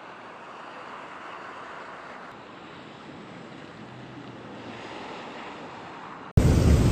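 Storm ambience: a steady rushing noise that cuts off suddenly about six seconds in, replaced by a much louder, deeper rumbling rush.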